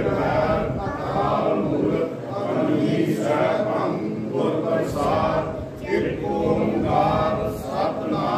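A group of men and boys chanting a Sikh prayer together in unison, in phrases of a second or two.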